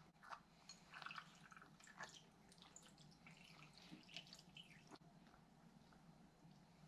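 Water poured from a small glass into a tall glass of ice and pineapple slices: a faint splash and trickle with small clicks, stopping about five seconds in.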